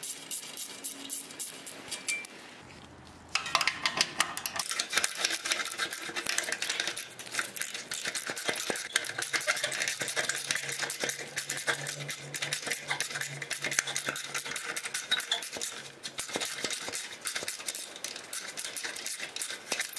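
Hand ratchet clicking rapidly as it backs off the exhaust clamp bolts, pausing briefly about two seconds in.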